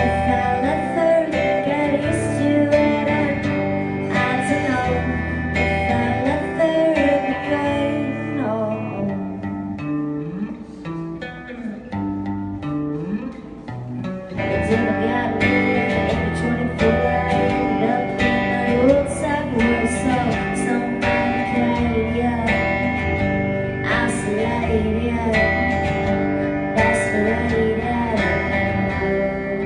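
Live music led by guitar, with singing; it drops softer for a few seconds around the middle, then comes back in full.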